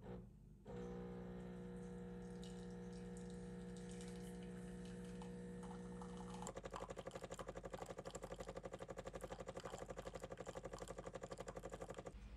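De'Longhi La Specialista espresso machine running: a steady motor hum, which about six seconds in turns to a rapid, even pulsing buzz from its water pump.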